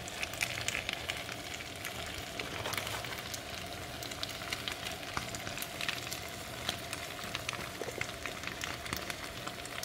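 Hot tomato-sauced bowtie pasta sizzling and crackling in a steel skillet, a steady stream of small pops, over a faint steady hum.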